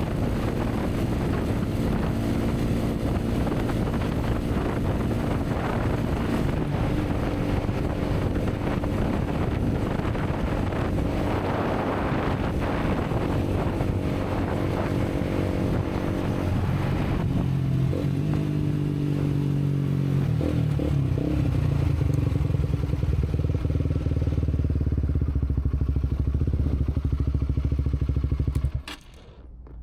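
Honda CBR150R's single-cylinder engine on the move, with wind noise over the helmet camera, slowing down with falling engine pitch about two thirds of the way in. It then runs steadily at idle and cuts out abruptly near the end.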